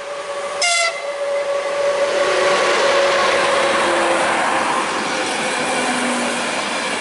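Czech Railways electric locomotive gives one short horn blast about half a second in. Then its train of passenger coaches passes close by, a rush of wheel and rail noise that rises and stays loud.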